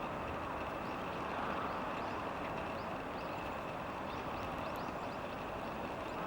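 Eurasian tree sparrows giving many short, faint chirps over a steady low rumble of background noise, with the chirps thickest in the middle.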